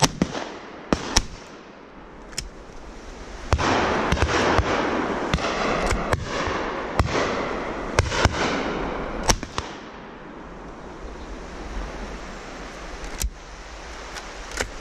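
A dozen or so shotgun shots at irregular intervals, some loud and close, others fainter, with a rushing hiss through the middle stretch.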